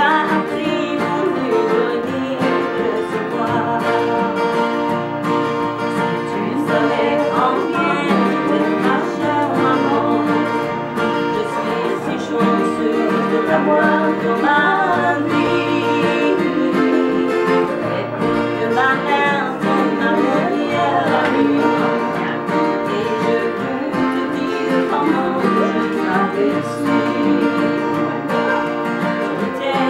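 Two acoustic guitars strummed together in a country-style song while a woman sings.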